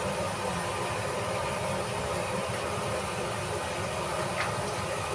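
Steady kitchen background noise: a continuous rushing roar with a low rumble underneath, and a light clink of a utensil about four seconds in.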